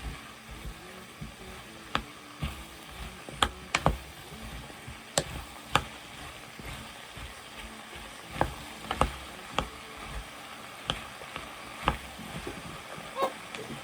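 Vegetables sizzling as they fry in a pan, with a steady hiss, and irregular sharp clacks of a utensil against the pan as they are stirred.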